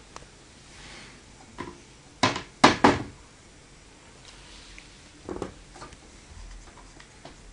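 A few dull knocks and bumps from objects being handled, with three loud ones in quick succession about two and a half seconds in and another about five and a half seconds in.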